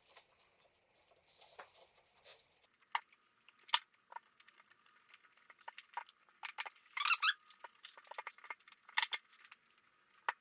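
New rubber weather stripping being pressed by hand into a car door's metal window channel: scattered light clicks and taps, with a short rubbery squeak about seven seconds in.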